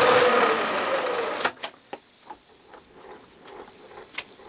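5/16-inch end mill on a vertical milling machine taking a roughing cut in a deep blind pocket in an aluminium vise casting: a loud steady cutting noise with a slightly falling tone, which stops abruptly about a second and a half in. Only faint scattered ticks follow.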